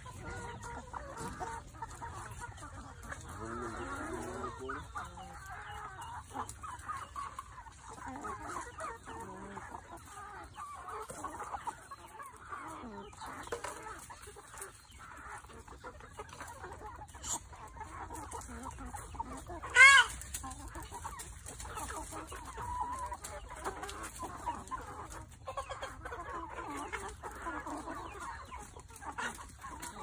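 A feeding flock of free-range chickens clucking, with one loud, short call from a chicken about twenty seconds in.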